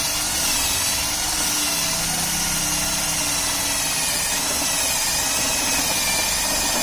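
12 V cordless drill running steadily as its twist bit bores through a thin iron plate.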